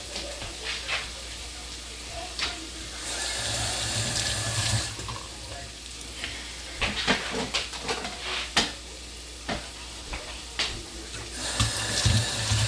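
Kitchen tap running in short stretches, turned on and off twice, with scattered knocks and clatter of kitchen utensils in between.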